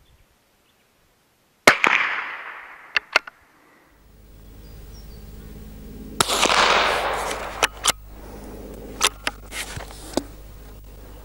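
A .22LR rimfire rifle, the Lithgow LA101, fired offhand twice, about 1.7 s in and about 6 s in; each shot is a sharp crack followed by a fading echo, with several shorter sharp clicks between the shots.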